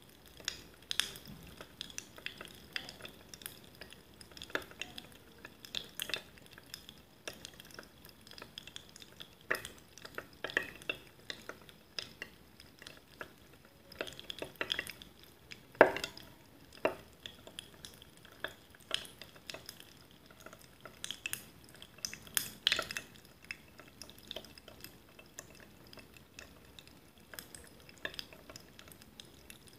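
Carbonated water fizzing in a glass mug: scattered small pops and crackles of bursting bubbles at an irregular pace, with the loudest pop about sixteen seconds in.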